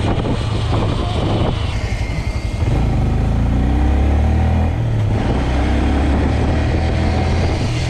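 Motorcycle engine heard from the rider's seat, with wind buffeting the microphone at first. It then pulls hard twice, its pitch rising each time as the bike accelerates through the gears.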